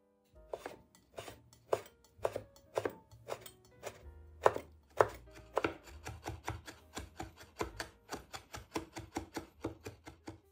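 Chef's knife chopping roasted red pepper on a wooden cutting board, the blade knocking sharply on the wood. The chops come about two a second at first, then quicken to an even run of about four a second from about six seconds in.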